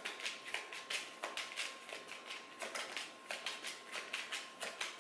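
Deck of oracle cards being shuffled by hand, the cards flicking and slapping against each other in quick, irregular taps, about four or five a second.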